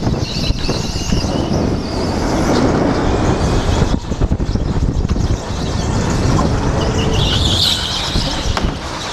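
Racing go-kart at speed, heard close up from the driver's seat, with a dense steady rush of motor and wind noise. A high whine rises briefly about half a second in, and again around seven seconds in as the kart takes a corner.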